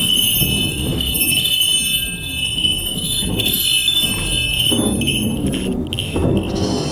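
Hawk's falconry bells jingling continuously over low wind rumble on the microphone.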